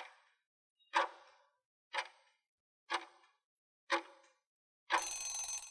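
Quiz countdown timer sound effect: clock ticks, one per second, five times, then a short ringing time's-up signal as the count reaches zero near the end.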